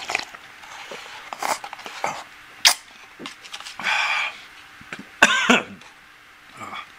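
A man slurping Donbei tempura soba cup noodles and broth: several short slurps, a longer one about four seconds in and a loud one just past five seconds, with a sharp click a little before three seconds.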